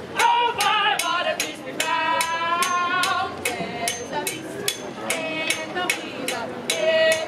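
A live song: a voice singing long notes with vibrato over a steady percussive beat of sharp clicks, about four a second.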